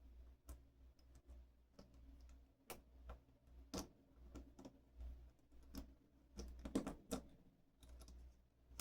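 Faint, irregular clicks and taps of small metal lock-cylinder parts being handled and fitted during reassembly of a Schlage lock, with a brief cluster of louder clicks a little past the middle.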